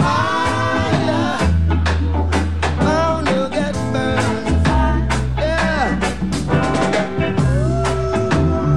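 Background song with singing over a steady drum beat and bass.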